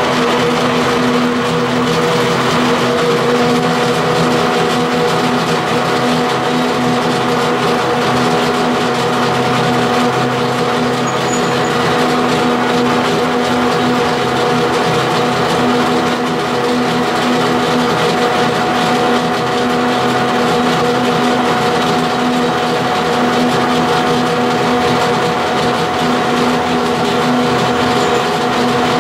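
Colchester Student metal lathe running steadily under power, its gearing whining, while the tool takes roughing cuts along a thin aluminium spindle that flexes against the tool, leaving a rough, scrapy finish. A higher steady whine joins about three seconds in.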